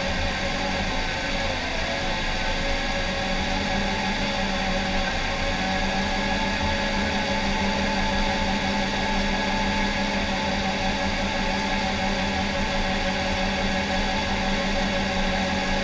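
John Deere 750K crawler dozer's diesel engine running at a steady pitch, heard from inside the cab.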